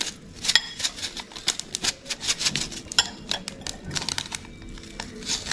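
Quick, irregular clicks and light taps of kitchenware, a few with a short ring, as chilli flakes are added to minced chicken.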